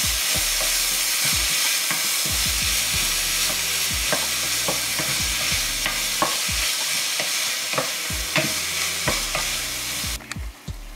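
Chopped onions sizzling in hot oil in a stainless steel pot while a spatula stirs them, scraping and knocking against the pot now and then: onions being sautéed. The sizzle cuts off suddenly near the end.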